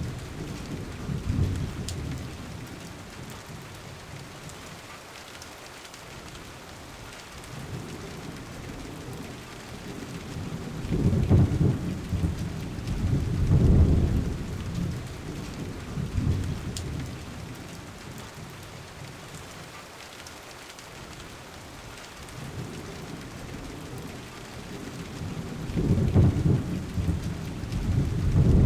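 Steady rain with low rolling thunder that swells and fades twice: once from about eleven seconds in, and again near the end.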